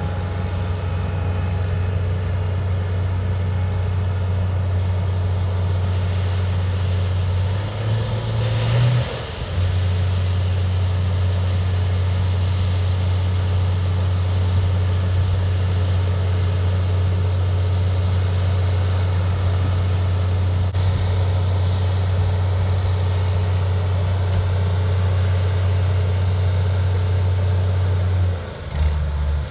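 Vehicle engine running at a steady drone, with a brief change in pitch about eight seconds in and again near the end.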